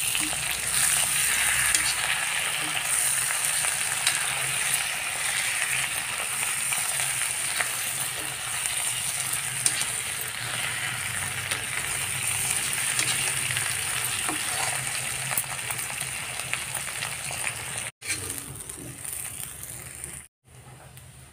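Stuffed bitter gourds sizzling as they fry in oil in an iron kadhai, with a metal spatula scraping and clicking against the pan as they are turned. The sound cuts out briefly twice near the end.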